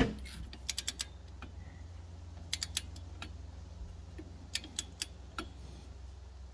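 A loud click at the very start as a click-type torque wrench snaps over on the golf cart transaxle's fill plug, reaching its set torque of 21 foot-pounds. It is followed by lighter metallic clicks in small groups of three or four as the wrench's ratchet and socket are worked off the plug and handled, over a steady low hum.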